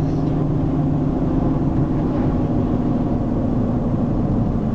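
Steady road noise inside a moving car's cabin: engine and tyre drone at cruising speed.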